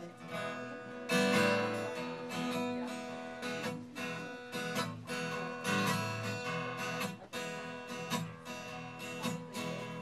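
Acoustic guitar strummed in a steady rhythm, the instrumental intro to a blues song, coming in fully about a second in.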